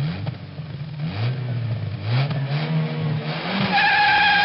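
Motorcycle engine revved in short repeated blips, its pitch rising with each blip about once a second; near the end a steady high-pitched whine sets in as it holds higher revs.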